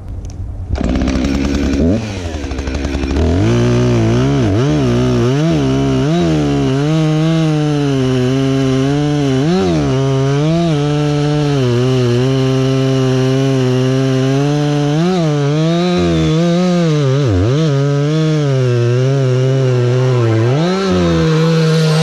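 Gasoline chainsaw cutting through a felled tree trunk near its stump. The saw comes in about a second in, runs lower for a moment, then at full throttle from about three seconds on, its engine pitch sagging and recovering as the chain bites into the log, with a few sharper dips under load.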